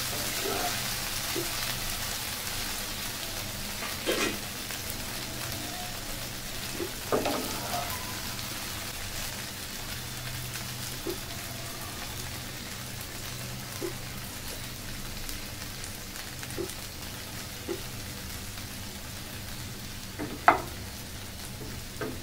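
Chopped okra (bhindi) sizzling steadily in oil in a non-stick frying pan, nearly done. A wooden spatula knocks against the pan a few times, sharpest near the end.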